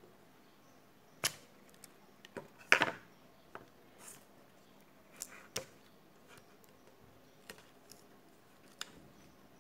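Steel tweezers and fingers handling a smartphone on a table: scattered light clicks and taps, loudest as a short clatter about three seconds in.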